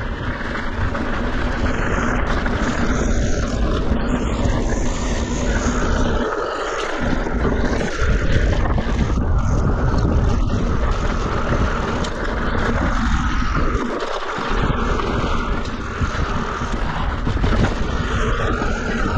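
Mountain bike rolling down a steep trail of loose rock: tyres crunching and skittering over gravel and stones, the bike rattling, and wind buffeting the action camera's microphone. It is a loud, continuous rough noise that eases briefly twice.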